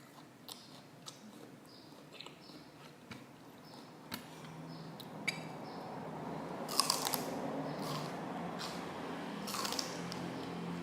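Raw celery stalk being bitten and chewed close to the microphone. Soft wet mouth clicks give way to louder crunching, with the two loudest crunches a little past the middle and near the end.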